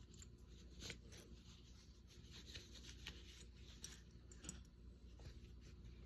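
Faint rustling and a few small clicks of hands opening a small gift box and its packaging.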